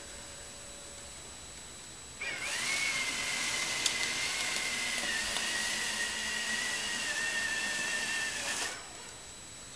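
Small high-speed electric motor of a robotic snow shovel prototype running with a high-pitched whine over a hiss. It starts abruptly about two seconds in, sags slightly in pitch midway, and cuts off abruptly about six seconds later.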